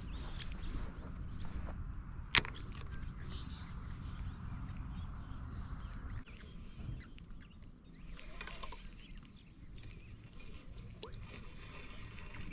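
Steady low outdoor rumble with one sharp click about two seconds in and a few faint ticks later.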